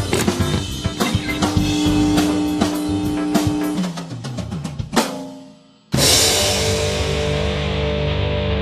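Upbeat background music with a drum kit, which fades out about five seconds in. About a second later a loud sustained chord starts and rings on, its brightness slowly dying away.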